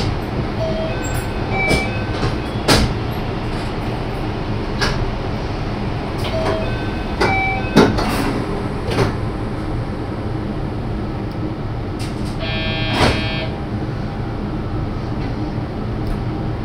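Marine Liner electric train standing at the platform with its sliding doors closing before departure: a steady low hum, several knocks and clicks in the first half, and a short pitched tone near the end.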